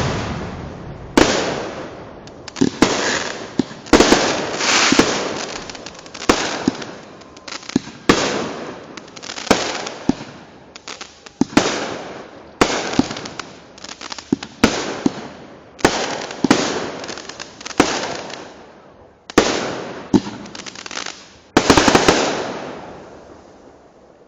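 A firework battery firing shot after shot: sharp bursting bangs about one to two seconds apart, each followed by a crackling fall-off. The last shot dies away near the end.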